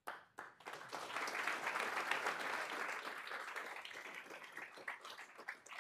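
Audience applauding: the clapping builds up within the first second, then dies away into a few scattered claps near the end.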